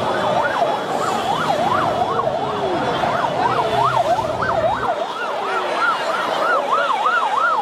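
Vehicle siren yelping, its pitch sweeping rapidly up and down about twice a second.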